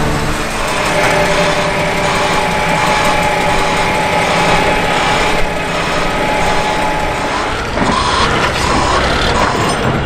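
Construction machinery running steadily with a high-pitched whine. Near the end a short tone starts repeating about twice a second over the machine noise.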